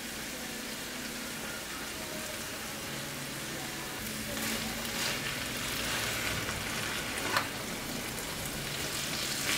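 Vegetables sizzling in a frying pan on a gas stove as a spatula stirs them, with brief scrapes of the spatula against the pan; the sharpest comes about seven seconds in.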